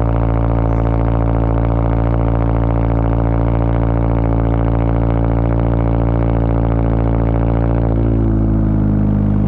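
Toyota GR86 flat-four engine idling through a Tomei 60S titanium cat-back exhaust, a steady low drone. About eight seconds in the note dips and then climbs again as the throttle is touched.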